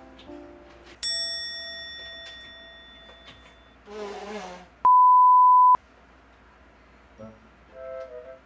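An edited-in bell-like ding that rings and fades over a couple of seconds. About five seconds in, a steady high beep, the loudest sound here, holds for about a second and then stops abruptly.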